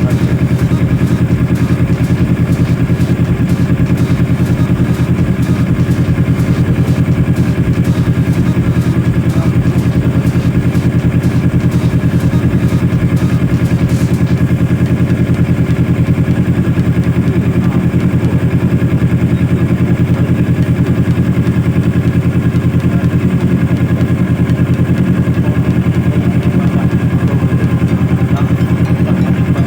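Kawasaki ER-6n's parallel-twin engine idling steadily while its stator coil output is checked.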